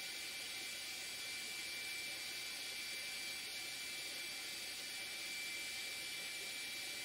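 Steady background hiss with a thin, high, steady whine through it; no distinct events.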